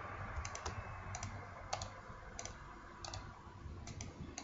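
Light clicking of a computer mouse: about a dozen short clicks, mostly in quick pairs about half a second to a second apart, over a faint steady low hum.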